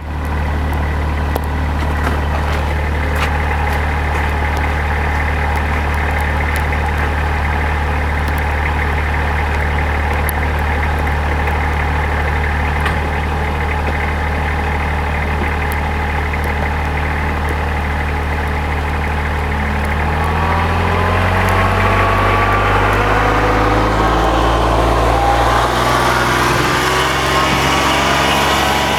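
Kubota RTV1100 utility vehicle's three-cylinder diesel engine idling steadily, then about twenty seconds in its speed rises, the pitch climbing over several seconds and staying high to near the end.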